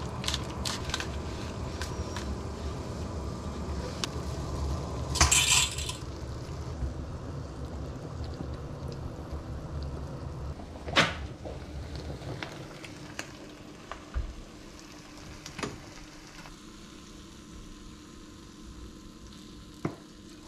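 Cooking sounds: scissors cutting open a spaghetti packet, a brief loud burst of noise about five seconds in, then a wooden spoon stirring meat sauce in a frying pan, with a few sharp clinks of utensil against pan.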